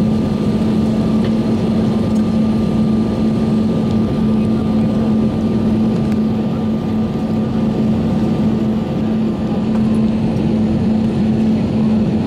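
Cabin noise inside an Airbus A320 taxiing after landing: the jet engines at idle and the aircraft's systems give a steady hum with a constant tone and an even hiss.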